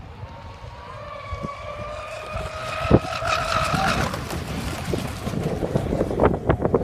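Pro Boat Zelos 36 RC catamaran's twin brushless electric motors whining at speed, the whine rising in pitch and fading out about four seconds in, with a sharp knock about three seconds in. Wind then buffets the microphone.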